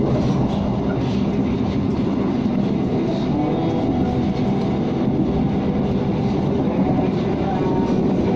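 Steady running noise of the KA Sancaka passenger train moving along the track, heard from inside the carriage: a continuous low rumble of wheels on rail with faint clicking.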